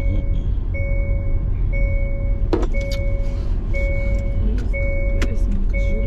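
Road and engine rumble inside a moving car, with a car warning chime beeping steadily about once a second, each beep long and even. Two sharp knocks come about halfway through.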